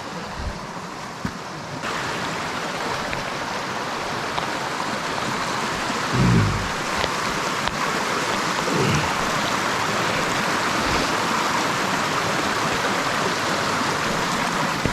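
Canyon creek running high after heavy rain, rushing steadily over rocks and growing louder about two seconds in. A brief low thud about six seconds in is the loudest moment.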